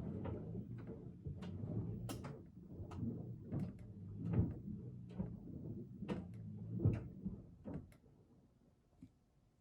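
A run of irregular knocks and clicks over a low hum, like objects being handled and set down, dying away about eight seconds in.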